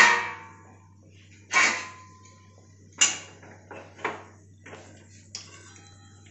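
Steel kitchen utensils clattering and clinking: several separate knocks of metal on metal, one ringing briefly, over a low steady hum.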